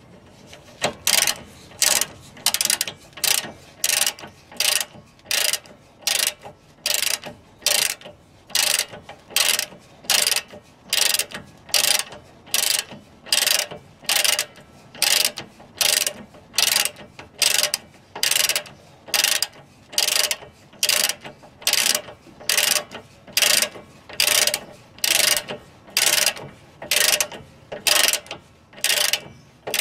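Socket ratchet clicking in short runs on each back-swing, about three runs every two seconds, as it tightens the nut on the rear shock absorber's lower mounting bolt. The clicking starts about a second in.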